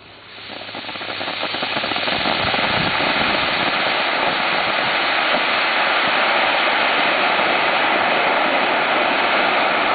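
Homemade tennis ball bomb burning and venting a jet of sparks: a loud rushing hiss that swells over the first two seconds and then holds steady.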